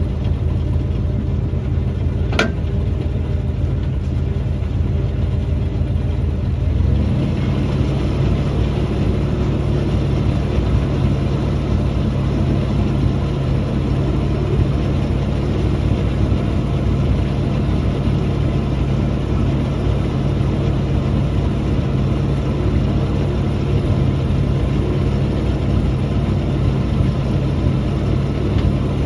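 1968 Dodge D300 tow truck's engine idling steadily, with a short sharp click about two seconds in; the engine note shifts slightly about seven seconds in.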